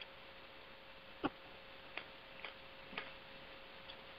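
Faint hiss of a telephone conference-call line with a steady faint tone and about five soft clicks, roughly half a second to a second apart, the loudest about a second in.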